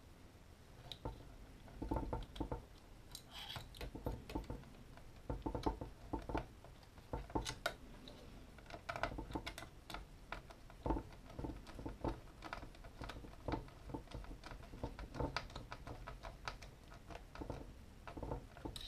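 Small screws being driven into a drone's plastic undertray with a hand screwdriver, giving irregular light clicks, taps and scrapes as the screwdriver and fingers work against the plastic frame.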